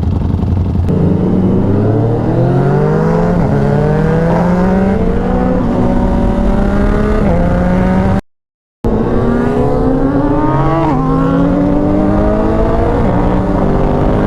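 Ducati Panigale V4's V4 engine on a performance exhaust accelerating hard through the gears, its pitch climbing and then dropping at each upshift. It comes in two runs split by a brief cut to silence about eight seconds in.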